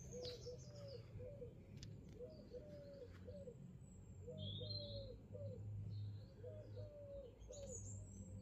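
Pigeons cooing faintly in short repeated phrases, with small birds chirping high above them now and then.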